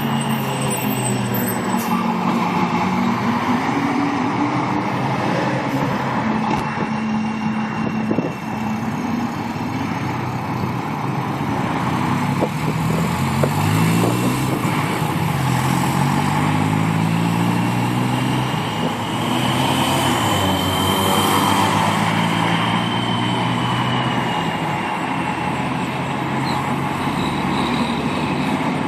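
Diesel truck engine running, its pitch climbing and dropping back several times, with a thin, high turbocharger whistle that rises and falls over it.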